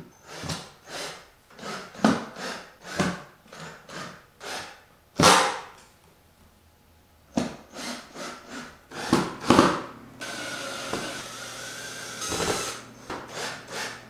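Expanded-PVC sign letters knocking and scraping against a PVC sign panel as they are pressed onto mounting pins: a run of short taps and rubs. Partway through there is a pause, and about two-thirds in there is a steady mechanical whir lasting about two seconds.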